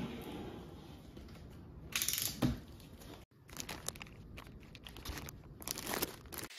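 A cardboard carton being opened: a utility knife drawn along the packing tape with sharp tearing noises about two seconds in. After a brief break halfway, plastic wrapping crinkles as wrapped contents are lifted out of the box.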